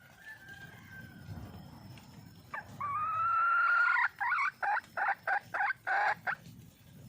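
Wild junglefowl hen calling to attract a mate: one long drawn-out note, then a quick run of about seven short notes.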